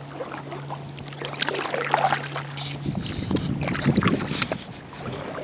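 Kayak being paddled: irregular paddle splashes and water sloshing, with light knocks on the hull.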